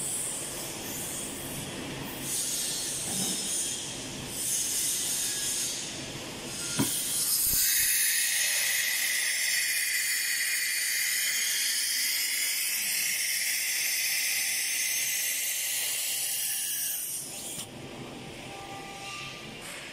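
CNC router's automatic tool changer swapping tools: axis motors drive the spindle along the tool rack, a sharp clack about seven seconds in as the toolholder is released, then a loud steady hiss of compressed air for about ten seconds that cuts off suddenly.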